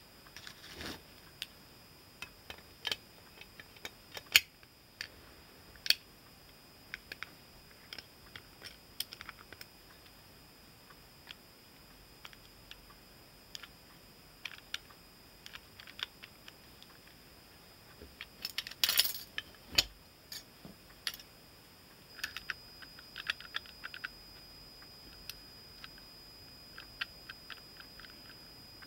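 Scattered small clicks and metallic clinks of a Hahn .45 revolver's parts being handled and fitted together by hand, with a dense run of clicks about two-thirds of the way through.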